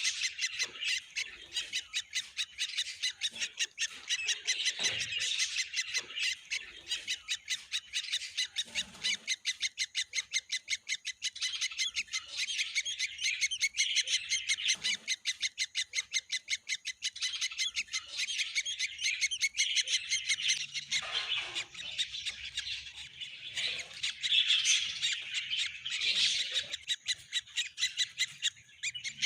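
Baby birds chirping: a continuous stream of short, high-pitched calls, several a second, typical of nestlings begging.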